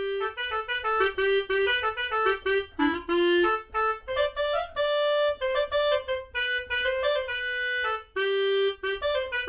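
Sampled clarinet from a Yamaha Motif XF library, converted to Kontakt, playing a single-line melody of short notes and a few held ones.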